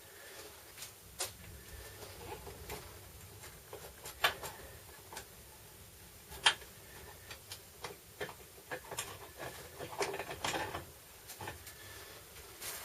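Irregular clicks and knocks of metal tools and transfer-case parts being handled and set down during disassembly or reassembly, with two sharper knocks about four and six and a half seconds in and a busier cluster of handling near ten seconds.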